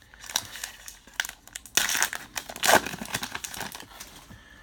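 A plastic baseball card pack wrapper crinkling as it is torn open by hand, loudest a little under two seconds in and fading near the end.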